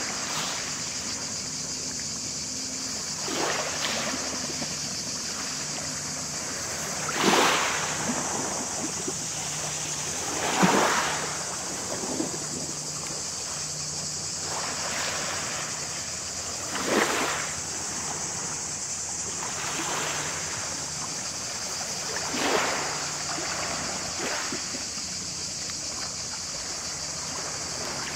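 Small waves lapping and washing onto a pebble shore, a soft swell every few seconds, over a steady high-pitched hiss.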